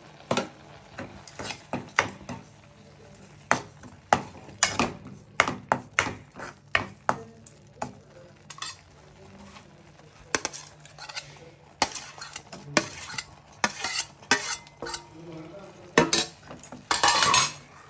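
Steel spoon stirring and scraping a tomato-onion masala in a black frying pan, with irregular metal clinks and scrapes against the pan over some sizzling. A louder rushing burst comes about a second before the end.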